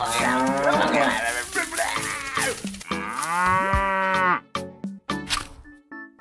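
Cow mooing: overlapping moos, then one long moo about three seconds in that cuts off sharply. A few faint clicks follow.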